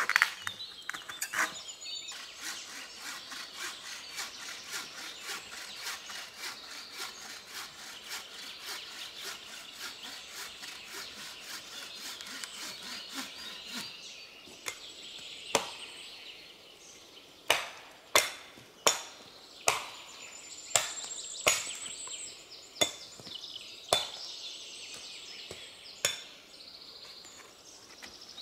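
Bow saw cutting through a fallen branch with steady back-and-forth rasping strokes. The sawing stops about halfway through. It is followed by about ten sharp wooden knocks at uneven intervals as the wood is worked.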